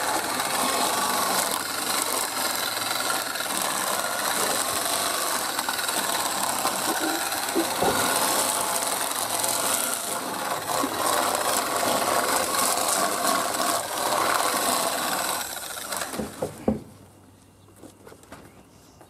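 Homemade barrel chicken plucker running as a scalded chicken is held down into it, a loud steady whir as the feathers are stripped. A few knocks come just before it stops near the end.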